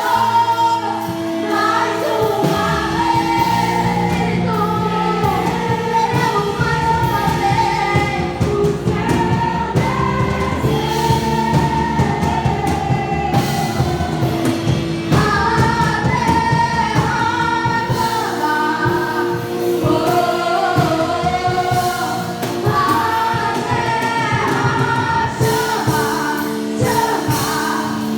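Worship song in a church service: several voices singing together over band accompaniment, with a steady beat coming in about two seconds in.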